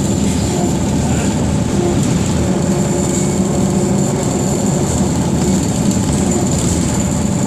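BKM 221 trolleybus driving between stops, heard from inside the passenger cabin: a steady rumble of the running gear with a constant high whine over it.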